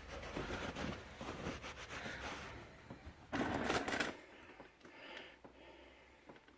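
Scattered clicks and rustling as the old rubber brake hose is pulled free and handled, with a louder scraping clatter a little past halfway as it goes into the drain bucket.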